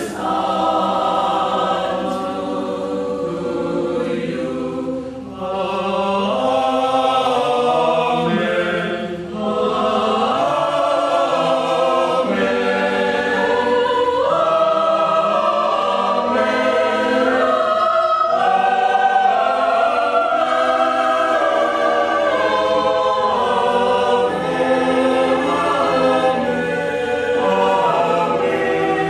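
Choir singing a communion hymn, with short breaks between phrases.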